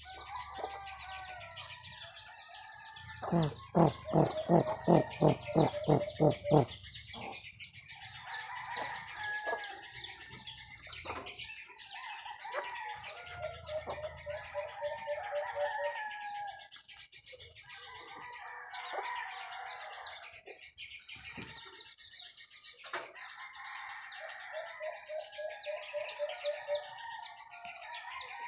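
Chicken clucking: a run of about ten loud, evenly spaced clucks a few seconds in, over steady high chirping of small birds. Later, two quicker, softer runs of calls.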